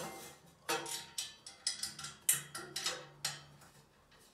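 A thin black toilet roll holder knocking and clattering against the wall and the screw heads as it is hooked onto the screws and settled in place: about eight sharp knocks over two and a half seconds, each ringing briefly.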